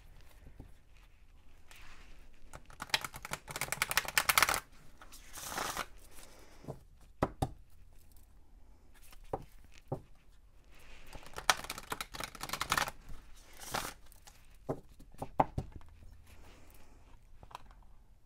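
A deck of oracle cards being shuffled by hand. There are two longer runs of quick card slaps and flicks, about three seconds in and again about eleven seconds in, with single taps between them.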